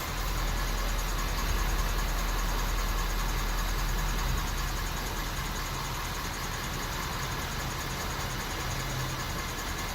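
2018 Ford F-350 engine running steadily, with a rapid, even ticking over the engine hum.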